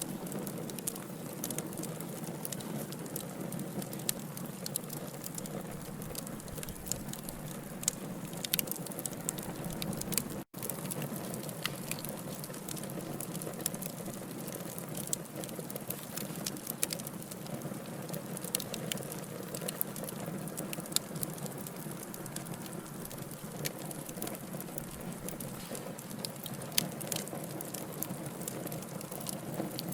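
Burning logs crackling, a steady low hiss with frequent sharp pops and snaps. The sound cuts out completely for an instant about ten seconds in.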